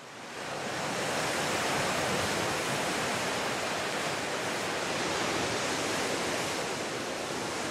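Sea surf washing in among coastal rocks: a steady rushing hiss that fades in over the first second and then holds.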